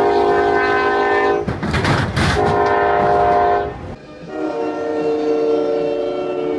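Locomotive horn sounding two long chord blasts, with the loud clatter of a passing train between them. After a sudden cut, another train horn sounds one long steady chord.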